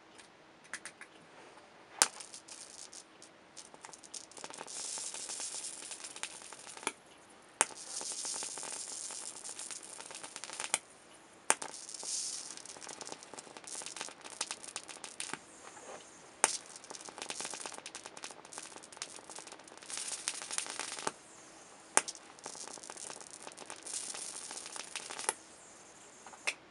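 High-voltage arc from a flyback transformer driven by a 24 V ZVS (Mazzilli) driver, hissing and crackling in stretches of a few seconds. About eight sharp snaps break in as the arc strikes and breaks.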